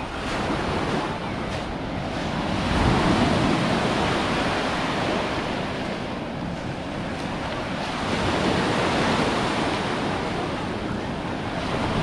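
Small sea waves breaking and washing up a shingle shore, the surf swelling about three seconds in and again about eight seconds in.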